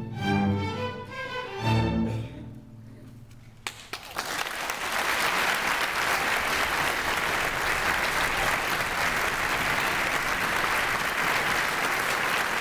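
String orchestra playing its closing chords, the last one about two seconds in, then falling silent. Around four seconds in the audience starts applauding and keeps clapping steadily.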